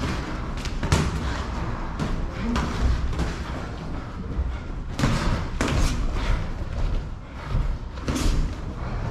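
Boxing gloves landing on gloves and headgear during sparring: several sharp thuds at irregular intervals.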